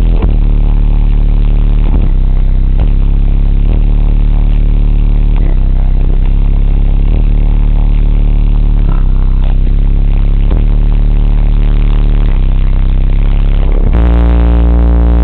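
Bass-heavy music played extremely loud through a wall of RE Audio MT 18-inch subwoofers on a Stetsom 10k amplifier, heard from inside the car's cabin and overloading the recording into heavy distortion. A sustained deep bass note runs under a regular beat, and the bass steps up louder with a new note near the end.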